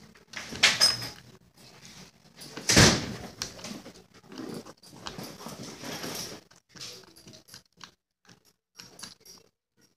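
Handling noises at a table: rustling and small clicks from fingers working a small piece of material, with one loud knock about three seconds in.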